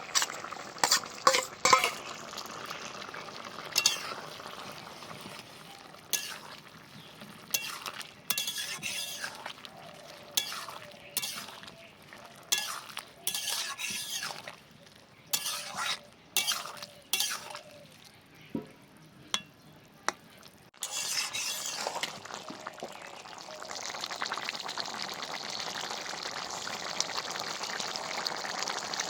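A spatula stirring and scraping in a karai as fried prawns are mixed into pumpkin curry, with repeated sharp clinks against the pan. About two-thirds of the way through the stirring stops and a steady sizzle of the curry cooking takes over.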